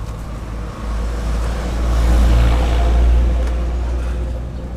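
Road traffic noise with a heavy low rumble that swells to a peak about two to three seconds in and then fades.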